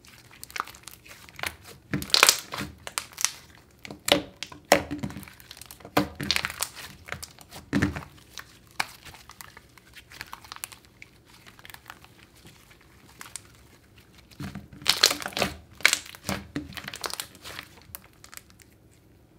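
Jelly slime with jelly cubes in it being stretched, folded and pressed by hand, giving clusters of sticky clicks and pops. The loudest clusters come about two seconds in and again around fifteen seconds.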